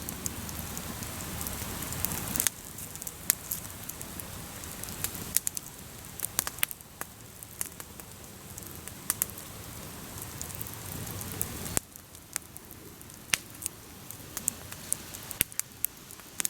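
Wood campfire crackling: a steady hiss with frequent sharp, irregular pops.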